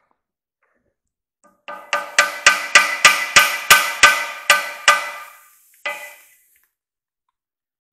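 Hand hammer tapping a chilled bushing into the heated pivot bore of a Case tractor's front casting, a shrink fit. A quick run of ringing metal-on-metal strikes, about four a second, then one last strike.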